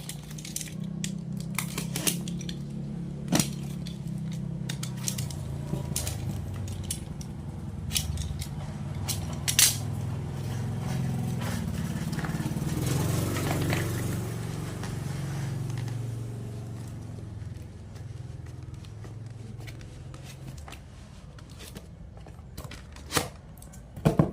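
A parcel being unboxed by hand: packaging rustling and tearing, with many small clicks and a few sharper knocks. A steady low hum runs underneath and fades about two-thirds of the way through.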